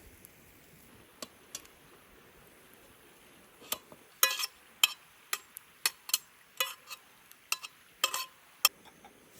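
Dishes and cutlery clinking: a quick run of about a dozen sharp clinks and taps over some five seconds, a few of them ringing briefly.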